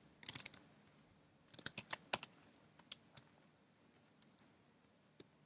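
Faint, sparse keystrokes on a computer keyboard: small clusters of key taps with pauses between, the busiest run about two seconds in.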